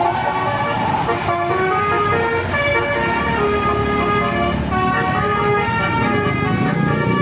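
Basuri multi-tone "telolet" horn on an Indonesian tour bus, playing a quick tune of short notes that keep changing pitch, over a low engine rumble that grows louder near the end.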